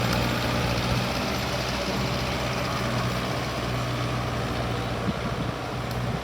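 Mahindra Arjun Novo 605 DI tractor's diesel engine running steadily while it drives a rotavator, its note easing slightly about five seconds in.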